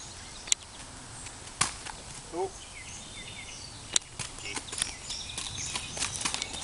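Irregular sharp clicks of a Norwegian Fjord horse's hooves walking on a gravel lane, with birds chirping faintly in the background.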